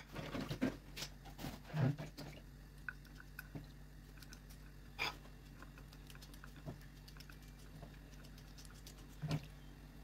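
Sparse small clicks and taps of fresh green beans being cut into short pieces with a small knife over a glass plate, the pieces dropping onto it. A cluster of clicks comes in the first two seconds, then single ticks every second or two, over a faint steady hum.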